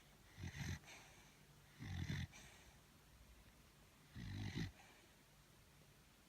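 Sleeping beagle snoring: three short snores about two seconds apart.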